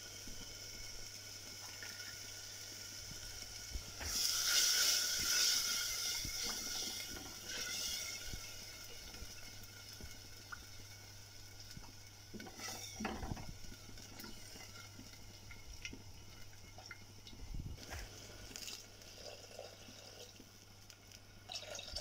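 Red chilli fish gravy sizzling and bubbling in a pot on the stove, louder for a couple of seconds about four seconds in, with a wooden spatula stirring it and knocking against the pot now and then.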